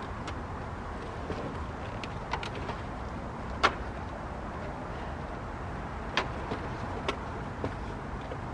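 Car door trim panel and its plastic parts being handled and fitted back in place: a few sharp clicks and knocks, the loudest about three and a half seconds in, over steady background noise.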